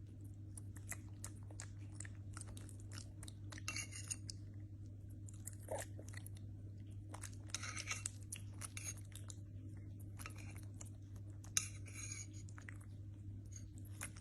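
A small monkey chewing and crunching food, with short clicks and bursts of crunching several times, over a steady low hum.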